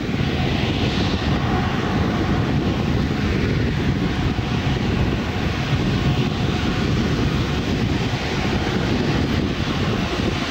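Airbus A380's four turbofan engines running at low taxi thrust as the jet taxis: a steady, even rumble with a broad hiss.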